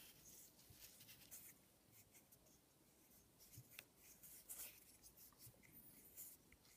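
Faint, scattered scratchy rubbing of fingers handling a Honda Fit pencil-type ignition coil, its plastic body and rubber boot sliding under the hands.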